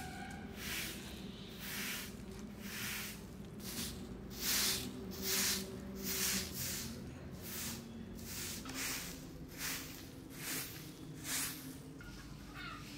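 Grass hand broom sweeping a bare earthen floor in steady strokes, each a short swish, roughly one every second, stopping near the end.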